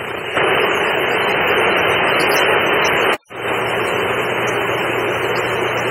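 Steady crowd noise from spectators in a gym, getting louder just after the start, with a brief dropout a little past three seconds in.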